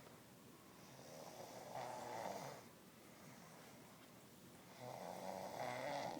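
Someone asleep snoring: two long snores about three seconds apart, the first about two seconds in and the second near the end, with quiet breathing between.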